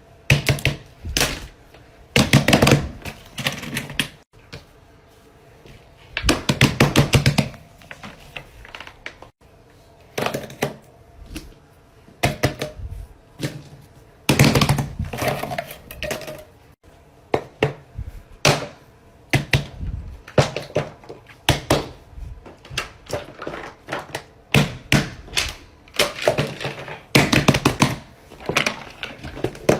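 Bursts of rapid clicking and tapping with occasional thuds, typical of fidget toys being handled, popped and clicked, coming in irregular clusters a second or two long.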